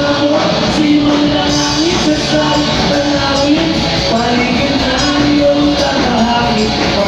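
Filipino rock band playing live, with a male lead vocalist singing long held lines over electric guitar, bass guitar and drums.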